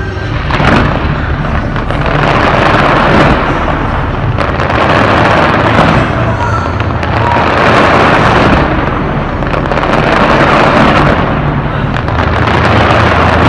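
Aerial fireworks in a continuous barrage: many overlapping bangs and dense crackling that swell and ease in waves every two to three seconds.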